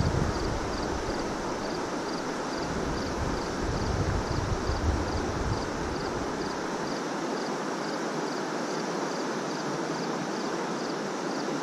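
Steady outdoor rush of wind and river water, with wind gusts buffeting the microphone at the start and again from about three to five seconds in. A faint high chirp repeats about twice a second throughout.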